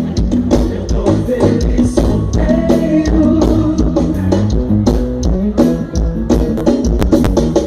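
Live band playing loud amplified music during a soundcheck, with heavy bass notes, a melodic line over them and regular drum hits.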